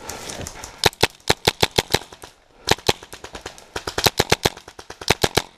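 Airsoft rifles firing in rapid full-auto bursts of sharp cracks, about eight shots a second, several bursts with short pauses between them.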